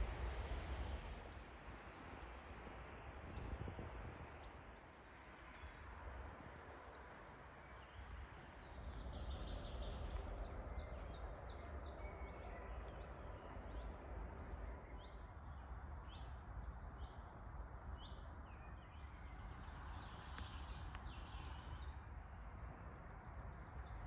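Faint woodland birdsong: small birds singing runs of high, quickly repeated notes several times over, over a low steady rumble.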